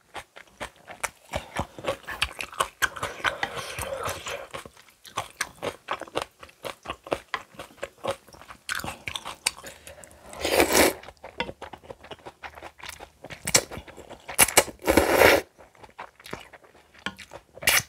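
Close-miked chewing and crunching of spicy kimchi, many quick crisp crunches in a row. Two louder, longer noisy bursts come about ten and fifteen seconds in.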